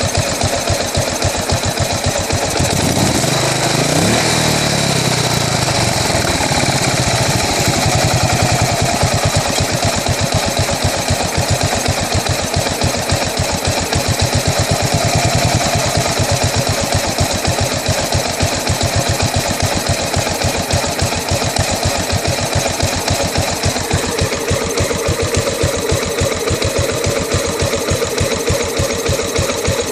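2008 Buell Blast's single-cylinder engine idling roughly, its speed rising briefly a few seconds in and then settling back to an uneven idle.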